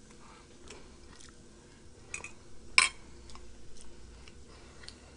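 Close-miked chewing during a mukbang of T-bone steak: scattered soft mouth clicks, with a sharper click a little past two seconds and a louder one near the middle.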